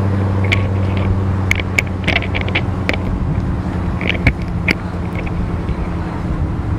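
2022 Dodge Challenger SRT Hellcat's supercharged 6.2-litre V8 idling with a steady low rumble, with scattered light clicks over it.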